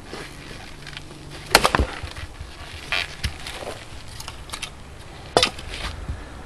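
Leveraxe splitting axe striking a log on a chopping block, a sharp wooden crack about one and a half seconds in with a quick second knock right after it. Lighter wooden knocks follow, then another sharp knock about five seconds in.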